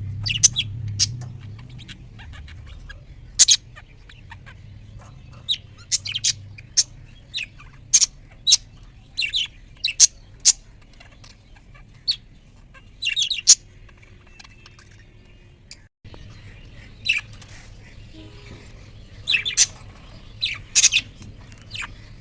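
Parrot calling in short, sharp high-pitched chirps and squawks at irregular intervals, some in quick clusters of two or three, over a low steady hum.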